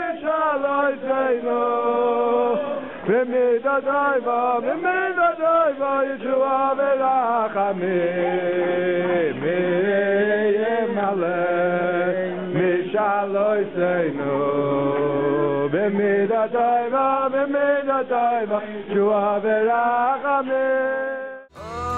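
Men's voices singing a chant together, recorded with a muffled, top-cut sound.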